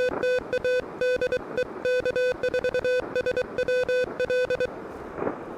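Morse code (CW) tone from an Elecraft KH1 QRP transceiver: one steady pitch keyed on and off in short dits and longer dahs. It stops near the end.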